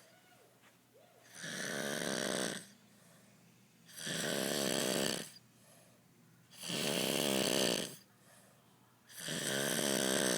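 Really loud, deep snoring from a man passed out drunk: four rattling snores, each about a second long, coming about every two and a half seconds.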